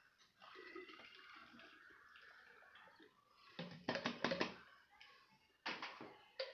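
Water poured from a plastic bottle into a plastic shaker bottle, first as a steady splashing stream, then about a second of loud, quick glugs as the bottle is tipped steeply. Near the end come a couple of short, sharp knocks as the plastic bottles are handled.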